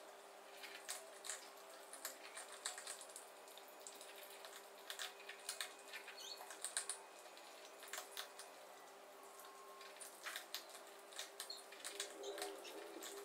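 Several cats eating from plastic bowls: faint, irregular small clicks and crunches of food against the bowls, over a faint steady hum.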